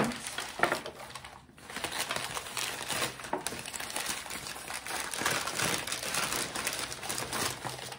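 Newspaper wrapping crinkling and rustling continuously as it is pulled open and crumpled by hand to unwrap a glass piece.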